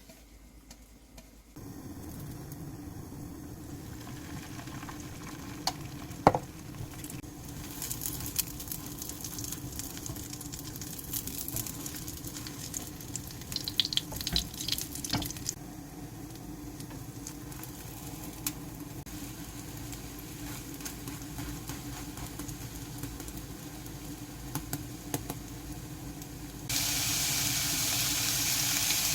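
Home kitchen cooking sounds: a steady low hum under scattered clicks and clatter of utensils, with one sharp knock about six seconds in. A couple of seconds before the end a loud steady hiss starts.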